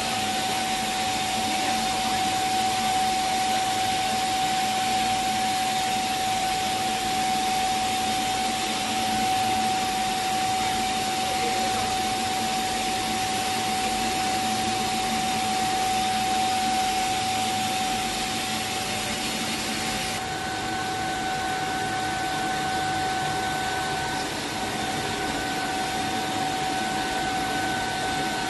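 Enamelled flat copper wire production line running: a steady mechanical whir and hiss with a constant whine. About two-thirds of the way through, the hiss softens and a second, higher whine joins.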